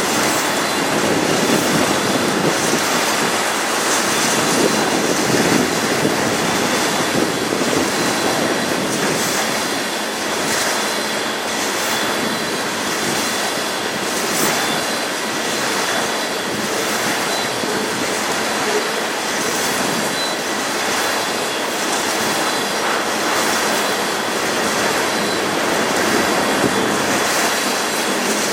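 Freight train cars rolling past, with steel wheels clicking over the rail joints in a steady rhythm and a thin, steady high wheel squeal.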